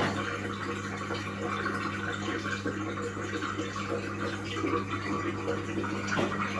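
Indesit washing machine's drain pump running with a steady hum, water gurgling as it empties the drum after the rinse.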